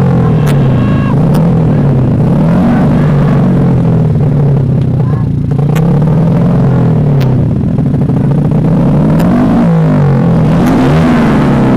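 Small 125cc underbone race-bike engines revved up and dropped back again and again in place, held on the throttle before the launch of a drag race. Several engines overlap.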